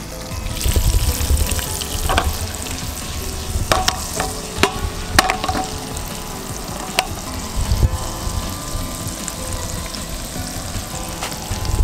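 Garlic-basil butter and olive oil sizzling in a frying pan with a whole trout frying in it: a steady hiss, with several sharp spitting pops around the middle. A few low rumbles sit under it.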